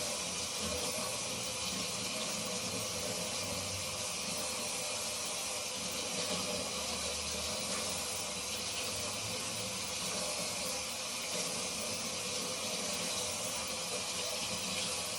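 Tap water running steadily into a sink, a continuous even hiss, as soapy beauty blenders are rinsed under it.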